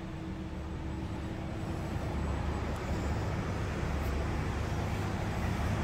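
Steady low background rumble, with a faint steady hum that stops about two seconds in.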